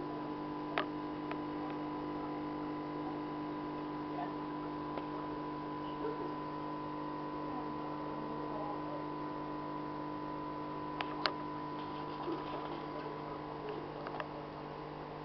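Steady electrical hum of an aquarium air pump running, with a few faint clicks, two of them about eleven seconds in.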